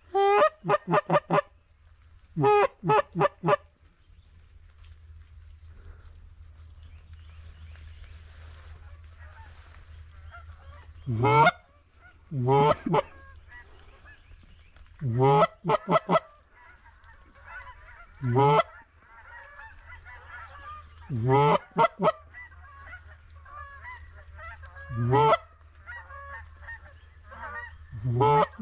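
Loud goose honks, first in quick runs of short notes and then singly or in pairs every few seconds, over the fainter, steady chatter of a flock of geese.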